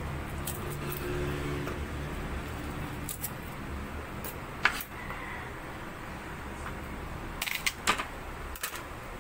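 Garlic cloves being peeled by hand and worked with a kitchen knife on a plastic cutting board: light rustling and clicks, a sharp tap about halfway through and a quick run of knocks near the end, over a steady low hum.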